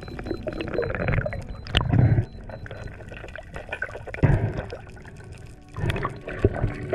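Water rushing and gurgling around an underwater camera as a freediver swims, with several louder surges of moving water and scattered small clicks.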